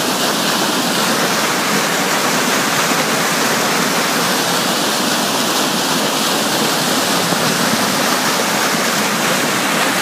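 Swollen Meramec River floodwater rushing and churning over its banks in a steady whitewater rush.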